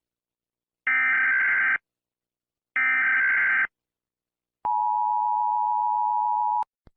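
Emergency Alert System SAME data bursts, two identical buzzy chirps of just under a second each, followed about 4.6 s in by the two-tone EAS attention signal, held steady for two seconds before cutting off. The sequence marks the start of a new emergency alert.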